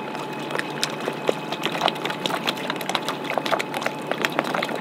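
Water lapping against a boat's hull: a run of irregular small splashes and clicks over a steady hiss.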